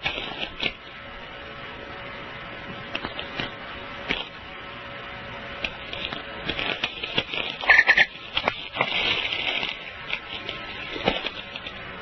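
Recording of natural radio static made during a geomagnetic storm, said to be the sound of balls of light: continuous crackling and frying, full of sharp clicks, over a faint steady hum. A brief louder pop comes about eight seconds in.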